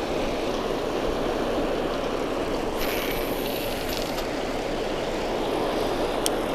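Water pouring over a spillway, a steady low rushing noise.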